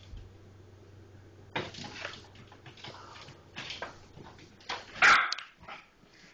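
Three-month-old Yorkshire terrier puppy yapping in a string of short bursts that starts about a second and a half in, the loudest about five seconds in.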